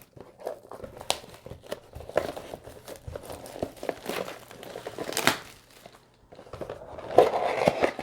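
Trading-card packaging being handled: crinkling and rustling of a cardboard box and pack wrappers, with scattered light clicks, a louder rustle about five seconds in and a denser stretch near the end.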